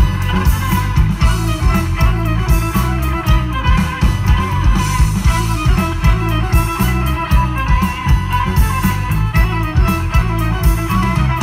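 Live folk-rock band playing an instrumental passage: fiddle over electric guitars, bass and a steady drum beat, loud.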